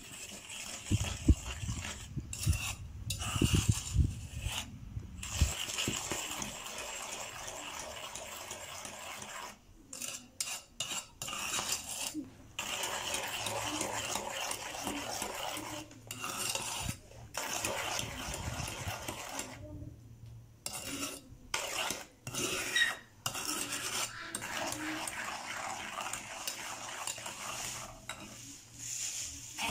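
Metal spoon stirring a thick, wet cocoa mixture in an enamel bowl, scraping and clinking against the bowl with short pauses. There are a few dull knocks in the first few seconds.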